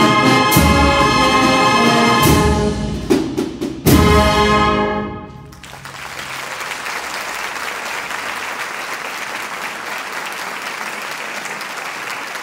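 Brass and percussion band (a Spanish agrupación musical) playing the closing bars of a processional march, with a few sharp accented hits before a final chord about four seconds in that rings out and fades. Then an audience applauds steadily.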